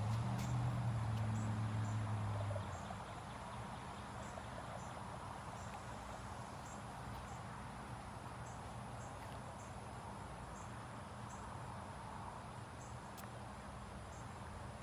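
Outdoor background with insects giving short, high chirps over a steady hiss. A low hum sounds for the first two or three seconds, then stops.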